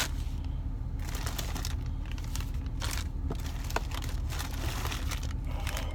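Plastic bags of soft plastic fishing baits crinkling and rustling in irregular bursts as they are rummaged through, over a steady low hum.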